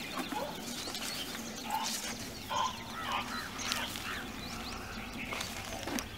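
Asian elephants making short, squeaky chirping calls, several in quick succession about halfway through.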